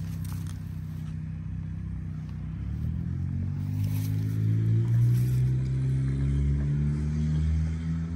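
An engine running with a low hum, rising a little in pitch and loudness about three seconds in and then holding steady.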